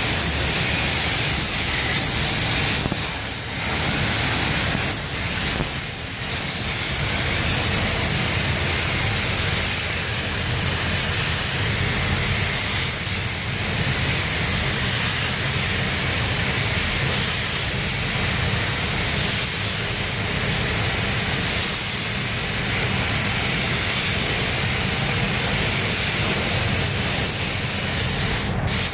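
Gravity-feed spray gun hissing steadily as compressed air atomises paint, with a steady low hum underneath. The hiss dips briefly a couple of times a few seconds in.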